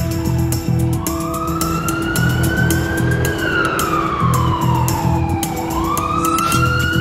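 Ambulance siren in a slow wail: the pitch rises for about two seconds, falls for about two and a half, then starts rising again near the end. Background music with a steady beat plays underneath.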